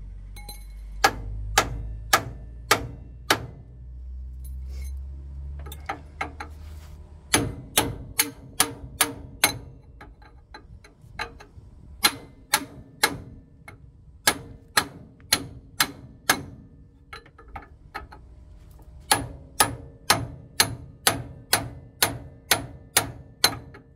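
Hammer blows on a steel extension bar held against the steering arm casting, striking about twice a second in runs with short pauses, to break a seized steering idler arm ball joint taper free.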